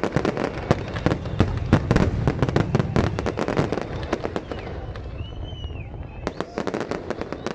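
Fireworks display: a dense, rapid run of crackling bangs that thins out after about four seconds to a few scattered bangs.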